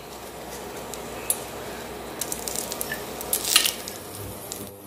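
Whole spices (cinnamon, cloves, star anise, bay leaves) sizzling in hot oil in a pressure cooker: a steady hiss with scattered crackles and clicks, the loudest about three and a half seconds in.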